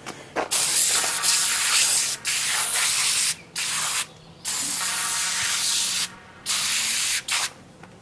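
Aerosol can of foaming cleaner spraying onto semi-truck brake parts in a series of hissing bursts, each about a second long, with short pauses between them.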